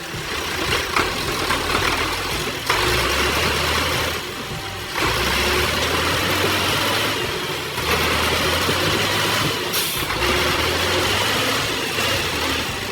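Heavy forestry machine's engine running, with mechanical working noise over it. The loudness shifts abruptly every few seconds.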